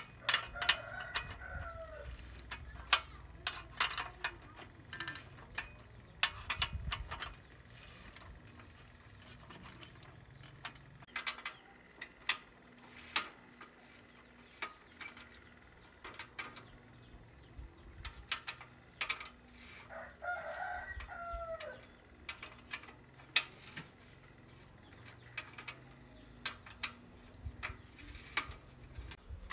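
Metal wrench clinking and clicking against a rusty bicycle's rear axle nut and hub as it is worked loose, in scattered sharp clicks. A rooster crows twice, once near the start and once about twenty seconds in.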